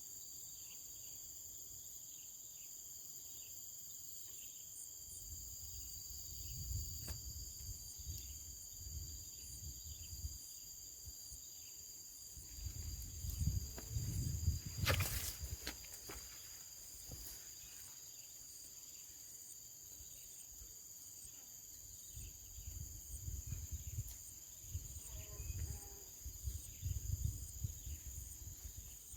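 Steady outdoor insect chorus, crickets holding several high, unchanging tones, with intermittent low rumbling on the microphone and a single sharp click about halfway through.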